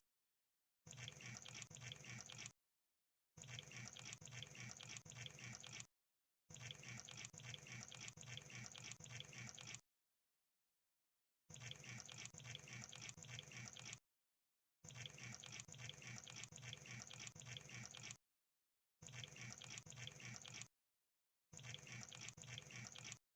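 Crab sound effect: faint runs of fast clicking and crackling, seven bursts of two to four seconds each with dead silence between them.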